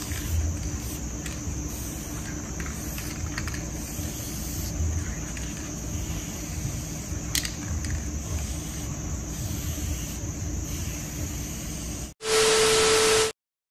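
Steady low background rumble with a faint hiss and no clear sound of the work. Near the end it cuts out, and a loud burst of noise with a steady held tone plays for about a second before stopping abruptly.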